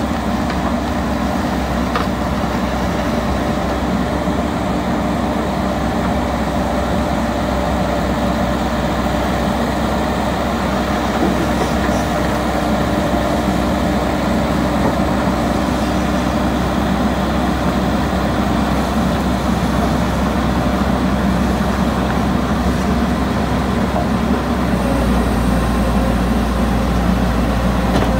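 Caterpillar hydraulic excavator's diesel engine running steadily as the machine moves, getting a little louder and deeper near the end.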